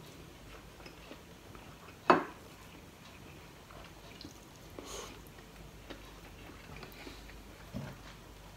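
Eating by hand from a plate: quiet handling and mouth sounds, with one sharp knock about two seconds in and a couple of softer ones later.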